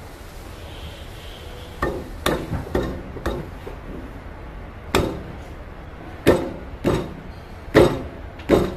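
Sharp metal knocks and clunks, about nine in all at uneven intervals, starting about two seconds in, as the stone flour mill's heavy metal cover is worked onto the mill body by hand. The loudest knocks come near the end.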